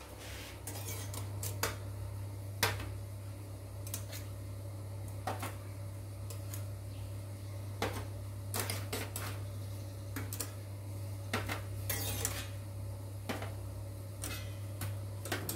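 Metal cake cups knocking and clinking against a stainless steel steamer's perforated tray as steamed cupcakes are lifted out one at a time: a dozen or so sharp, irregular clinks over a steady low hum.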